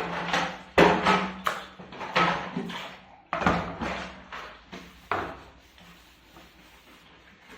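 Cooking pots and utensils clattering and knocking against each other as they are washed and handled, a series of sharp knocks, some with a short ring. The knocks are loudest in the first five seconds and fainter near the end.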